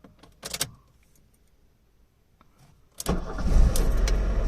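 A few faint clicks, then about three seconds in the Fiat Elba's 1.5 four-cylinder engine is cranked and catches, starting suddenly with a heavy low rumble after the car has sat unused and struggled to start.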